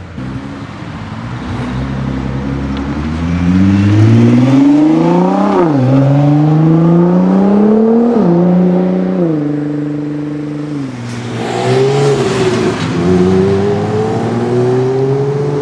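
Nissan GT-R R35's twin-turbo V6 accelerating hard, its pitch climbing and then dropping sharply at two quick upshifts. It then eases off before pulling up through the revs again near the end.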